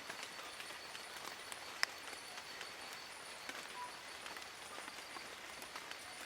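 Steady rain falling on leaves in a forest, with scattered drops tapping close by and one sharper drop about two seconds in.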